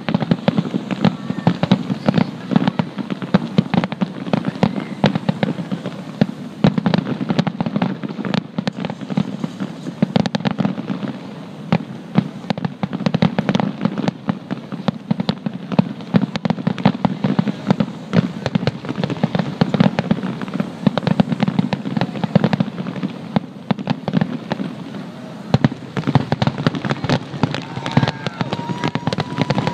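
Aerial fireworks shells bursting in rapid, unbroken succession: dense overlapping booms and crackles with no pause between them.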